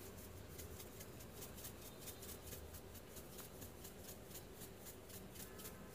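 Faint, rhythmic shaking of salt from a shaker into a small glass bowl, about five soft ticks a second.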